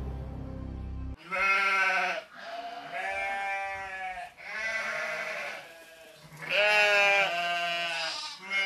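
Background music cuts off about a second in. Then come five drawn-out bleating calls, each about a second long with short pauses between them.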